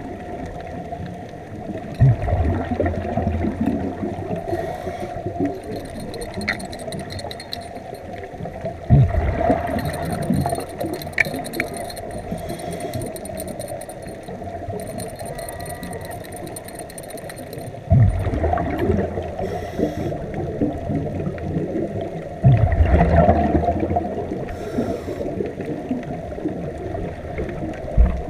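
Underwater sound of a scuba diver's regulator breathing: four loud gurgling rushes of exhaled bubbles, several seconds apart, over a steady hum and water noise.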